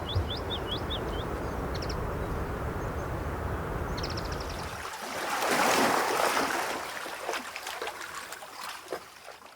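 Rushing water noise with a low rumble, a few short high chirps near the start, and a swell that rises and falls about halfway through like a wave breaking, then fades out with light crackling.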